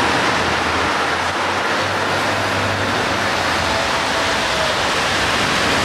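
Steady hiss and rumble of street traffic heard from above, with cars passing on the snowy street.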